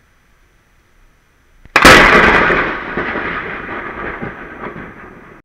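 Thunder from a very close cloud-to-ground lightning strike about 250 m away: a sharp crack about two seconds in, then a loud rumble that fades over the next few seconds and cuts off suddenly near the end. A faint hiss comes before the crack.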